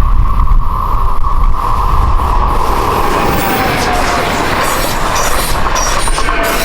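A train passing, with a whining tone that slowly falls in pitch and rolling noise that swells through the middle. Wind rumbles on the microphone throughout.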